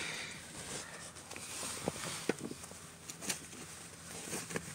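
A few faint, scattered clicks and taps of a gloved hand pressing on and handling a black plastic seat-rail bolt cover, over a faint low steady hum.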